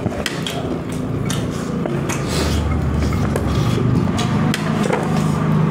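People eating with their hands: close-up chewing with many small, sharp clicks and crunches, over a steady low hum.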